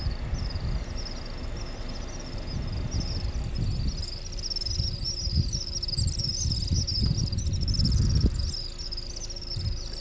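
A flock of small birds calling: many short, high chirps that fall in pitch, repeating a few times a second and overlapping, over a low rumble.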